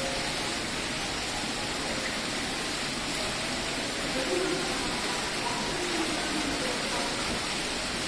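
Steady splashing and rushing of water running down a stepped indoor cascade fountain.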